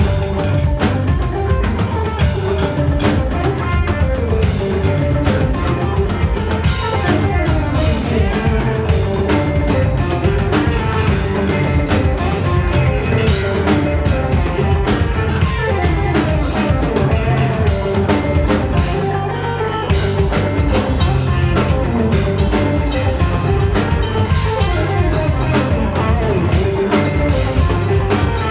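A rock band playing live, with drum kit and guitar, loud and steady; the cymbals and high end drop out briefly about two-thirds of the way through.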